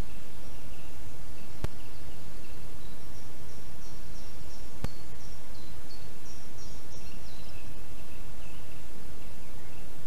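Steady outdoor hiss of forest ambience with birdsong: a run of short high notes in the middle, over fainter repeated chirps throughout. Two sharp clicks sound, one early and one about halfway through.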